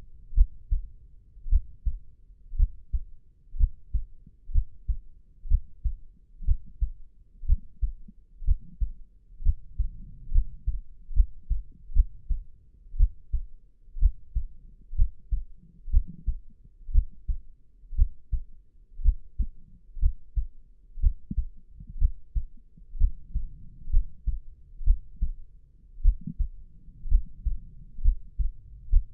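Human heartbeat: a steady rhythm of low, muffled double thumps (lub-dub).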